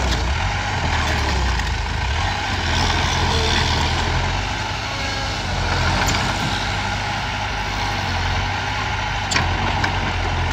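Komatsu D20A small crawler bulldozer's diesel engine running steadily as it pushes broken stone, with a couple of short sharp clinks about six and nine seconds in.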